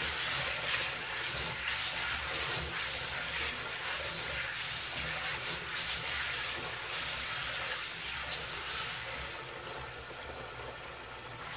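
Kitchen faucet running into a stainless steel bowl of soaked soybeans while a hand swishes the beans around in the water, rinsing them. A steady splashing rush that eases a little near the end.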